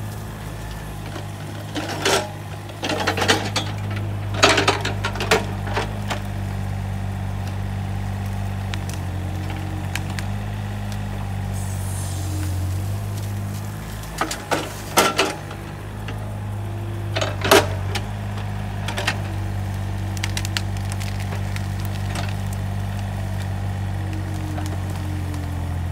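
Takeuchi TB135 mini excavator's diesel engine running steadily under hydraulic load, with a string of knocks and clunks from the bucket working the root debris: a cluster about 2 to 6 seconds in and more around 14 to 19 seconds in.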